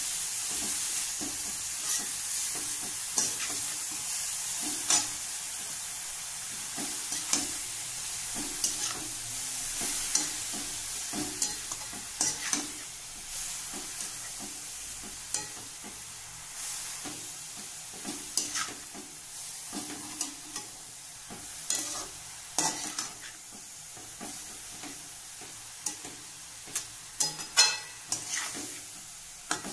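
Grated radish sizzling in a little oil in a steel kadhai while a metal spatula stirs it, scraping and clicking against the pan at irregular intervals. The sizzle slowly dies down.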